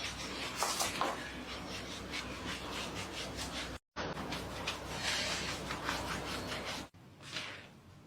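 Hands rubbing over the skin of a back during a massage, heard close: a steady rubbing made of quick strokes. It breaks off for an instant near the middle and drops away near the end.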